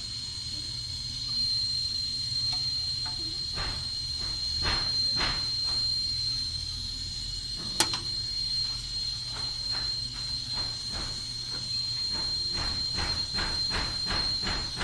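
A steady, high-pitched insect trill, with a string of light clicks and taps over it that come faster over the last few seconds, and one sharper click about eight seconds in.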